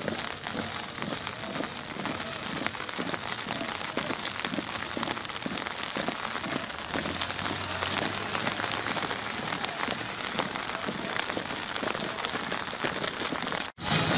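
Steady rain hiss, with the regular tramp of a marching column's boots on wet pavement at about two steps a second. The sound cuts out abruptly near the end.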